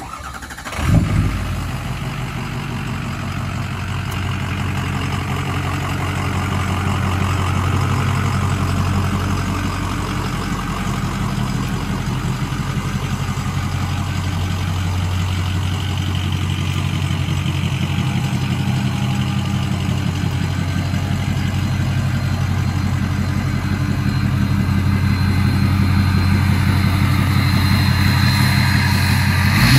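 2007 Ford F-250's diesel V8 (6.0 L Power Stroke) starting about a second in and settling into a steady idle.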